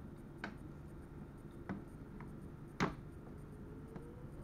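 Inside an electric train's driver's cab: a steady low rumble with scattered sharp clicks and rattles, the loudest nearly three seconds in. Near the end a faint whine starts rising steadily in pitch.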